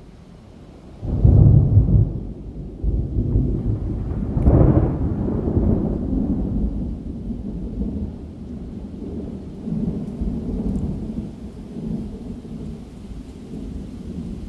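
Thunder: a sudden loud rumble about a second in, a second peal a few seconds later, then a long rolling rumble that slowly eases with smaller swells.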